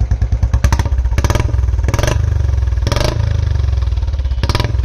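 Royal Enfield Bullet Standard 350's single-cylinder engine running through an aftermarket long 'Punjab'-style silencer, its even idle thud giving way to several quick throttle blips with sharp cracks. The note through this pipe is bass-heavy, muffled somewhat by the retained catalytic converter.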